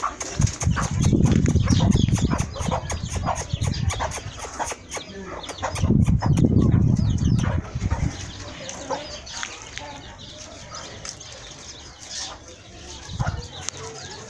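Chickens clucking, with two loud bursts of wing flapping, one starting about half a second in and the other about six seconds in.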